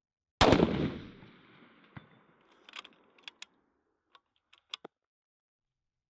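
A single shot from a 6.5 Creedmoor bolt-action rifle, its report echoing and dying away over about a second and a half, with a faint distant knock about a second and a half after the shot. Then come a few sharp metallic clicks in two short clusters as the bolt is worked.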